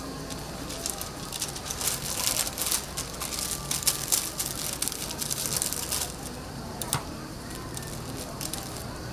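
Food frying on a hot flat griddle, crackling and spattering, busiest for a few seconds in the middle, with a single sharp click near the end.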